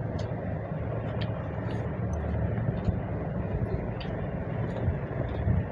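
Steady low background rumble, with scattered short wet clicks of chewing and lip smacking from people eating rice and chicken curry by hand.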